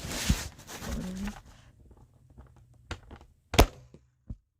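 Plastic clicks and knocks from a Nerf Rival Roundhouse blaster being handled, with one sharp, loud snap about three and a half seconds in and a fainter knock just after it.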